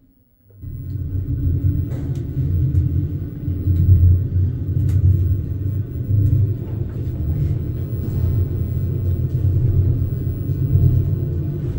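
Elevator car travelling upward, heard from inside the cab as a steady, loud low rumble that starts about half a second in, with a few faint clicks over it.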